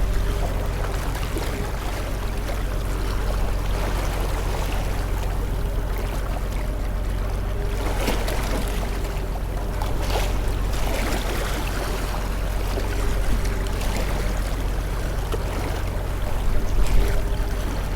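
Steady ambient white-noise bed: a constant low hum under a wash of water-like noise, with faint swishes now and then.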